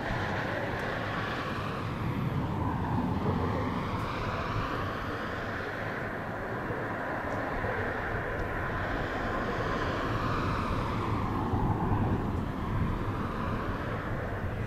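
Aircraft engine droning as it passes overhead, its tone sweeping slowly down and back up.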